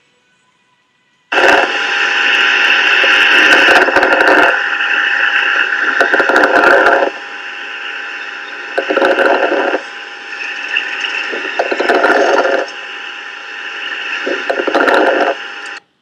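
Recorded breath sounds of a critically ill child: loud, noisy breaths rising and falling in about five surges, one every two to three seconds, over a constant hiss with steady tones. It starts about a second in and cuts off abruptly near the end.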